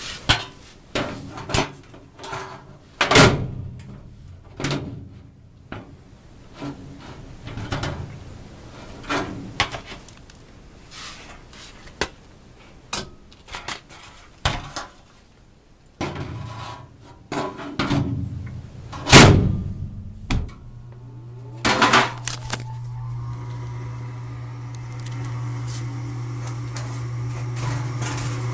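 A run of knocks, clicks and clatters of things being handled, the loudest about three and nineteen seconds in. About three quarters of the way through, an electric motor starts and hums steadily, slowly growing louder.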